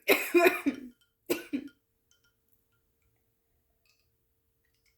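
A woman coughing, a lingering cough from an illness she is just getting over: a loud run of coughs in the first second, then two short coughs about a second and a half in.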